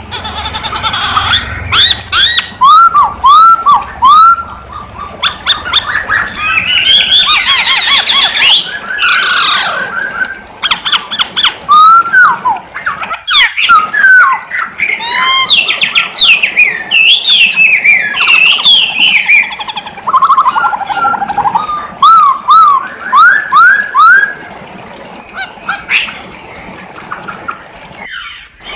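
A masked laughingthrush (poksay hongkong) singing loudly and continuously: a fast, varied run of slurred whistled notes, many falling in pitch, mixed with sharp, harsh calls, with a brief pause about halfway through.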